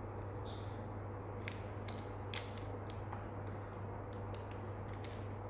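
Faint, irregular light clicks and ticks, several over a few seconds, over a steady low hum.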